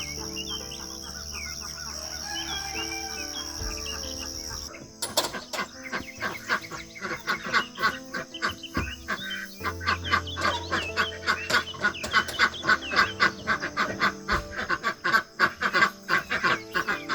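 Insects trilling steadily and small birds chirping, then about five seconds in an abrupt change to a flock of poultry calling over one another in rapid, constant clucks and honks.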